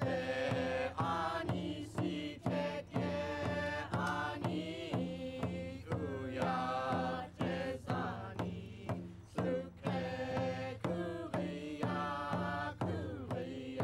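Background music: a singing voice over a steady drumbeat and a low sustained hum.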